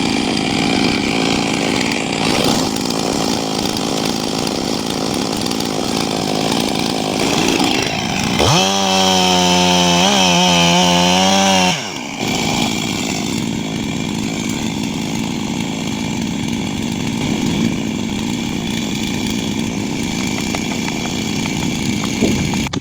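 Chainsaw running and cutting wood, with one saw held at a high, steady, loud pitch from about eight and a half to twelve seconds in before it drops off suddenly.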